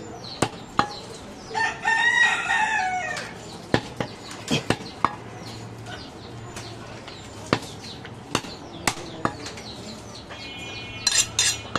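A butcher's knife knocks on a wooden chopping block in short, irregular strikes as goat meat is sliced. About two seconds in, a rooster crows once; this is the loudest sound.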